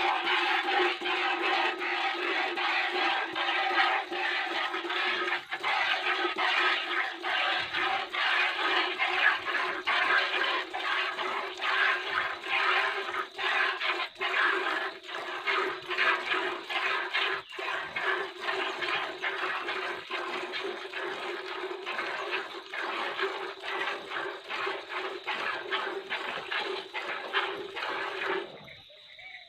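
Cow being hand-milked: jets of milk squirting into a plastic bucket in a steady run of quick, repeated squirts. The sound drops off briefly near the end.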